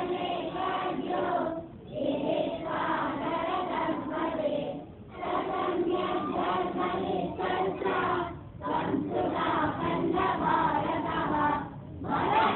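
A group of schoolchildren singing a prayer together in unison, in phrases of about three seconds with short breaks between them.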